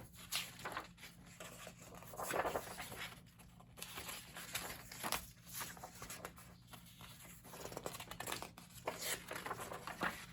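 Thin old book pages being torn and handled: irregular bursts of paper tearing and rustling as a plate is pulled from the book.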